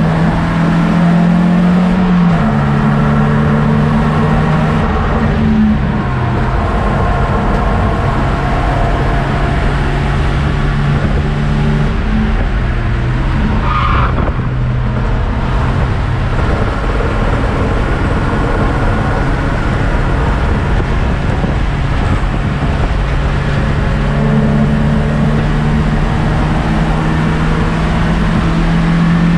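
BMW M42B18 1.8-litre four-cylinder engine running under hard load, heard from inside the stripped E30 race car's cabin, with road noise. Its note steps down twice in the first few seconds as the driver lifts or shifts, holds through the middle, and climbs again near the end; a short tyre squeal comes about halfway, through a corner.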